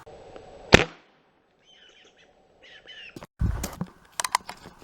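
Crosman 2240 CO2 air pistol firing one sharp crack under a second in, a quick follow-up to a shot just before. Chirping bird calls follow, then near the end a heavy low thump and a few sharp knocks.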